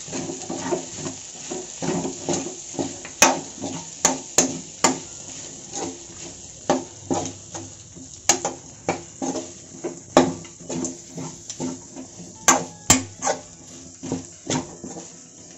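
Steel spoon stirring pork fry in a coated kadai, with irregular metallic clinks and scrapes as it knocks the pan, about one or two a second.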